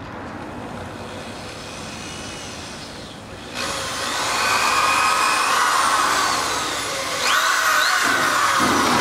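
Cordless drill boring into a fiberglass widebody fender: a faint low-speed whine at first, then the motor spins up sharply about three and a half seconds in, eases off briefly, and runs up loud again near the end.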